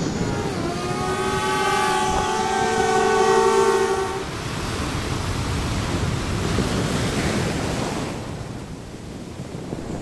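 A long horn blast of several tones sounding together as a chord, held steady for about three and a half seconds, over a steady noisy rush of outdoor background.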